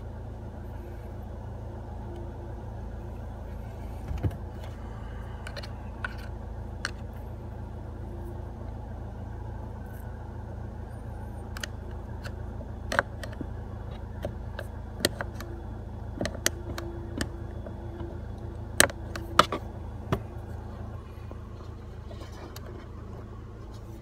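Seat Ibiza Mk5's engine idling steadily, heard from inside the cabin, with scattered sharp clicks and taps of a flat-head screwdriver in the airbag release slot at the back of the steering wheel as the airbag's retaining clip is pried loose. The loudest clicks come as a close pair about two-thirds of the way through.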